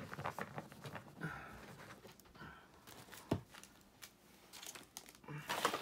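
Trading cards being handled and set down on a table: faint scattered taps and light rustles, with a sharper tap about three seconds in and a few more near the end.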